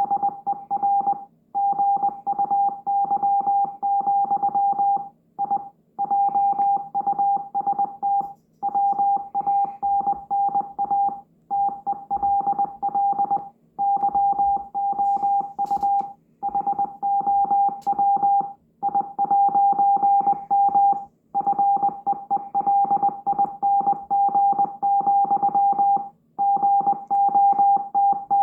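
Morse code: a single mid-pitched beep keyed rapidly on and off in dots and dashes, over a faint hiss, with short breaks between runs every two or three seconds.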